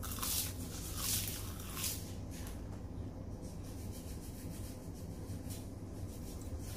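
Dry crackling and crunching of crispy roasted seaweed sheets, several crisp bursts in the first two seconds and fainter after, over a steady low hum.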